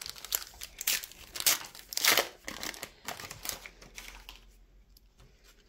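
Foil trading-card sachet crinkling and tearing as it is handled and opened, with a run of crackles that are loudest about one and a half to two seconds in, then die down to faint rustles.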